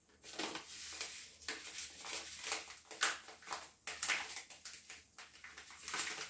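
Kitchen containers being handled: a continuous run of irregular light clatter, clinks and rustling, typical of getting a spice out of its container.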